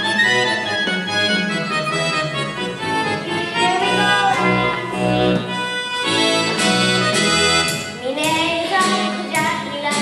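Music with a steady beat, the beat standing out more clearly in the second half.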